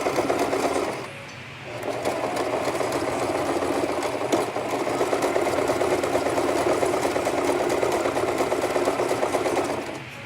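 Sewing machine stitching at speed through doubled hair wefts, stopping briefly about a second in, then running steadily again until it stops near the end.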